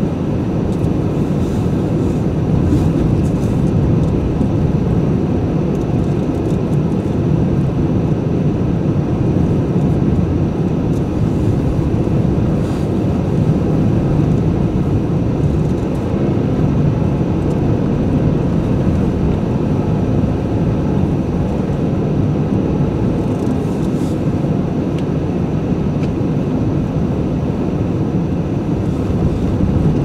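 Steady low rumble of tyre and engine noise from a car driving slowly on a snow-packed road.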